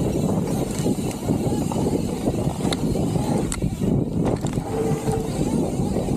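Mountain bike rolling down a dirt trail: the tyres rumble over the ground, the bike rattles, and there are a few sharp clicks about halfway through.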